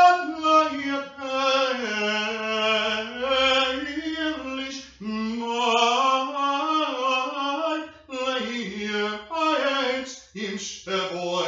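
A man singing solo with no accompaniment, in long held notes that slide up and down in pitch. The phrases break off briefly about five, eight and ten seconds in.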